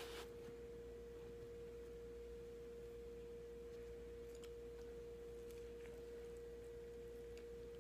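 A steady, faint pure tone just under 500 Hz, like an electrical whine in the recording. A few faint soft clicks in the second half come from the sandwich being handled and bitten.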